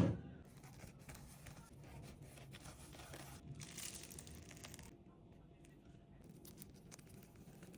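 Faint crinkling and tearing of paper or plastic packaging, with scattered light clicks of kitchen handling and a louder, hissier rustle about three and a half seconds in.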